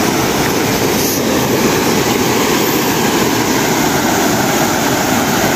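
Salug River rapids rushing over rocks, a steady, loud water noise that does not change.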